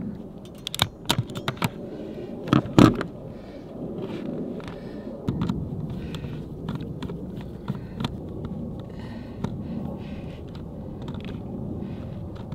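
Ratcheting hand crimper clicking and snapping as metal ferrules are crimped onto solar cable ends, the loudest snaps about two and a half seconds in. After that, smaller clicks and rustling from cables being handled and terminal-block screws being turned.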